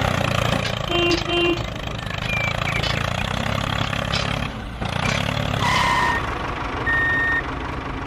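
A tractor engine runs steadily with a low rumble, with a pair of short beeps about a second in. Near the end, high steady whistle-like tones come in.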